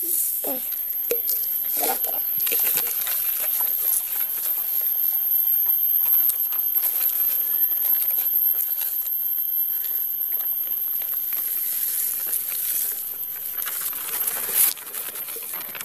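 Rustling and scraping of a plastic sheet being handled and folded on a concrete floor, a steady rustling hiss that stops abruptly near the end.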